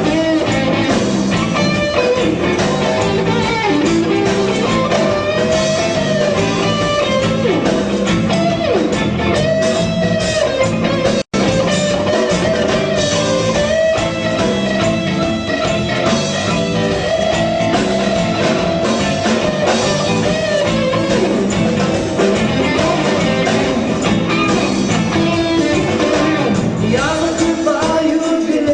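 Rock band playing an instrumental break, a guitar lead line bending and wavering over bass and drums. The sound cuts out for an instant about eleven seconds in.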